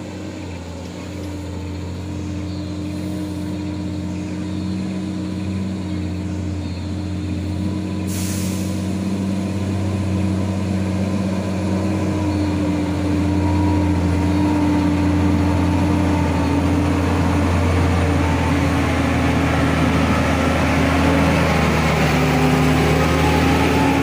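Loaded Mercedes-Benz Actros 4043 6x6 logging truck's diesel engine running steadily, growing louder as the truck approaches and draws alongside. A brief hiss of air brakes about eight seconds in.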